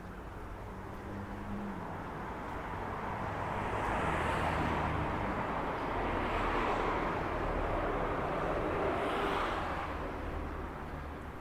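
Road traffic passing: several vehicles swell up one after another and fade away again, with tyre noise over a low engine hum.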